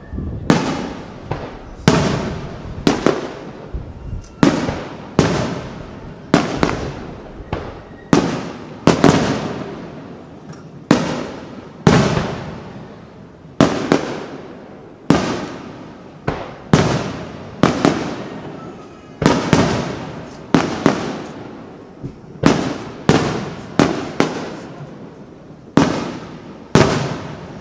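Aerial firework shells bursting in a steady barrage, a sharp boom about once a second, sometimes two close together. Each boom trails off in a rolling echo.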